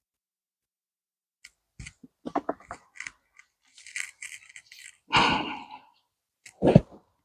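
Hands digging through dry potting compost in a container of harvested potatoes: a run of short crunches and scrapes, a louder rustle a little past halfway, and a dull thump near the end.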